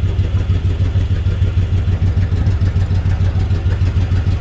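An engine idling steadily, a low rumble with a quick, even pulse.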